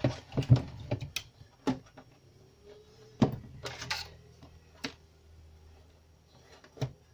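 Scattered knocks and clicks as a CRT TV's main circuit board is handled and shifted about on a workbench, loudest in the first second. A faint steady low hum runs underneath.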